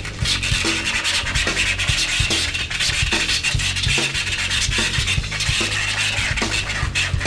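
Turntable scratching: a DJ working records back and forth in quick, irregular strokes, over a steady low bass note.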